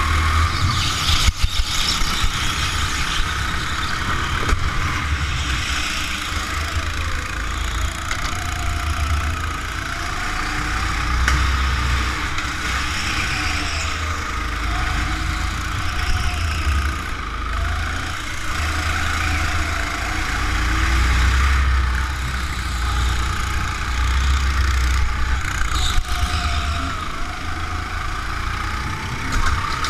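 Go-kart engine heard on board while driving, its pitch rising and falling again and again as the throttle opens and closes through the corners, over a heavy low rumble. A sharp knock about a second in.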